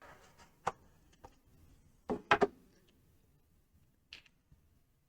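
A few sharp clicks and taps from small parts and packaging being handled on a workbench, the loudest a quick double click about two seconds in, with a brief higher tick near the end.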